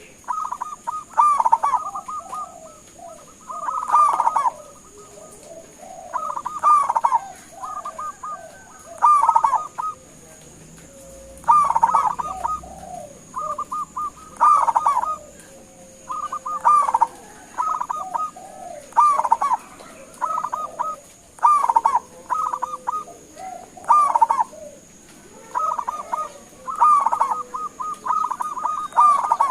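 Zebra dove (perkutut) singing its cooing song: short phrases of quick staccato notes, repeated one after another every second or two.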